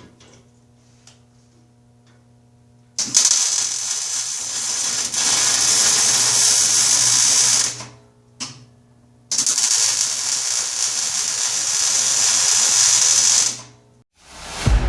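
Electric angle grinder grinding weld beads flat on the steel go-kart bumper: two runs of about four seconds each, with a brief touch between them, and the disc spinning down after each run.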